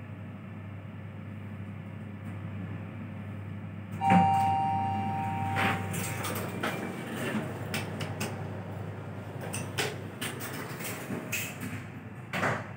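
Otis Xizi traction elevator at a floor stop: a steady low car hum, then about four seconds in a clunk with a two-tone arrival chime that rings for about two seconds as the doors slide open. Scattered knocks and clicks follow, with a louder knock near the end as the doors shut.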